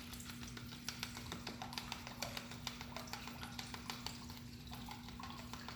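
Faint, irregular small clicks and taps of kitchen work over a steady low hum.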